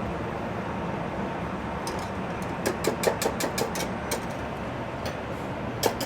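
A metal utensil clinking and tapping against a pan in a quick run of about ten sharp clicks about halfway through, and a few more near the end, over a steady hum of kitchen ventilation.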